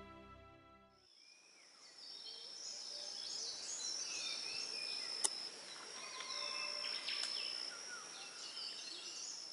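Background music fades out about a second in, giving way to tropical forest ambience: a steady high-pitched insect drone with birds chirping and whistling over it, and one sharp click about five seconds in.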